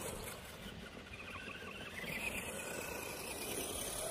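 FTX Kanyon RC crawler's electric motor and gearbox whining faintly as it drives along tarmac, the whine wavering in pitch.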